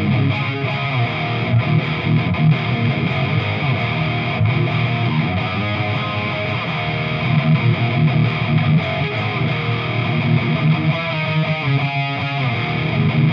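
Electric guitar, a Chapman ML3 through its Seymour Duncan Quarter Pound bridge pickup, playing chords with an overdriven crunch tone through an amplifier, with a run of fast picked notes near the end.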